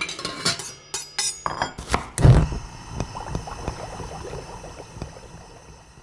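Sound logo for the end card: a quick run of sharp clicks and clinks, then a heavy low hit about two seconds in, whose ringing tail slowly fades away.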